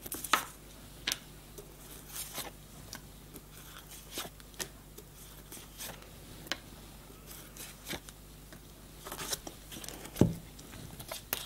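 Oracle cards handled and laid face down one by one on a wooden table: scattered soft taps and slides of card on wood, with a slightly heavier tap about ten seconds in.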